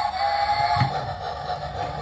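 Music with a steady held tone; a low hum comes in a little under a second in and continues.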